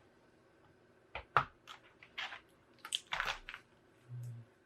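Light clicks and a short rustling scrape of a laptop keyboard and plastic casing being handled during disassembly, with a brief low hum near the end.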